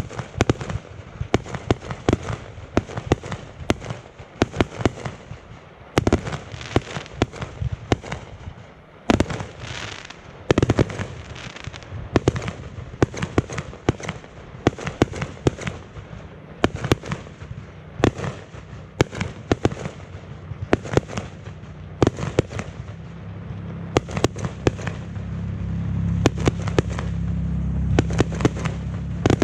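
Aerial fireworks going off in quick succession: a dense run of sharp bangs and cracks, several a second. A low, steady rumble builds underneath over the last several seconds.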